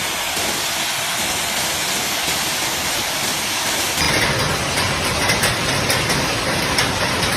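Heavy rain and hail pouring down as a loud, steady hiss. After a cut about four seconds in, the downpour grows louder and many sharp hailstone hits stand out.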